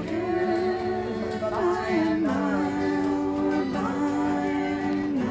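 Music: a singing voice holding long notes that slide from one pitch to the next, over plucked string instruments.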